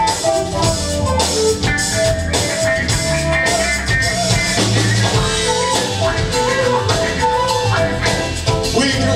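A live rock band playing: drum kit keeping a steady beat under electric guitars and bass, with a held melody line over the top.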